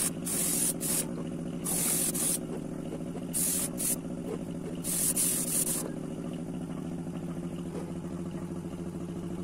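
Short hisses of paint being sprayed onto a fishing lure, five bursts in the first six seconds, over a steady motor hum that carries on alone after the spraying stops.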